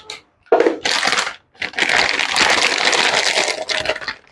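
Plastic packet crinkling and rustling as it is handled and opened to take out dried bay leaves: two short bursts, then continuous rustling for about two and a half seconds.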